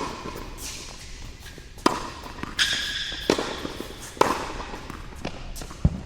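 Tennis ball in a rally, struck by rackets and bouncing on the court: sharp pops roughly once a second, with a short high squeak about two and a half seconds in.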